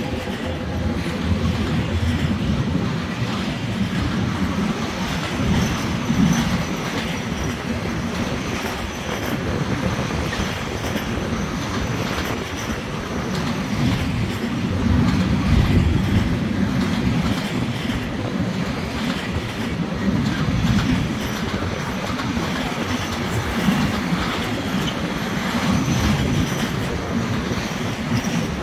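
Container freight train's wagons rolling past in a steady rumble, the wheels clattering over the rail joints.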